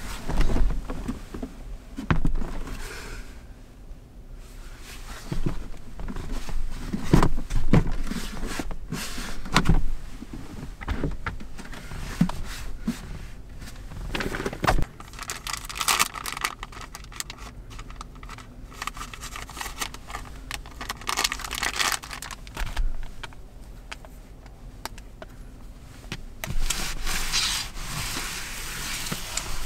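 Things being handled at close range in a small space: irregular knocks and clicks, with rustling and scraping.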